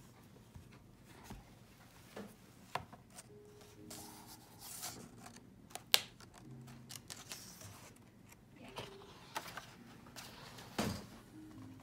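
Hardcover picture book being opened and its paper pages turned by hand: quiet rustling with soft clicks and taps, and one sharp click about six seconds in.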